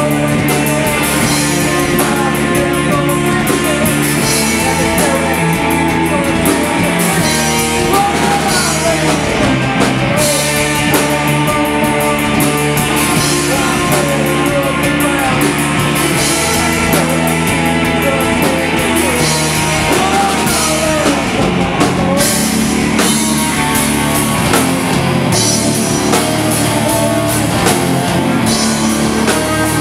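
Live stoner rock band playing loud and without a break: electric guitars and a drum kit, with a man singing over them.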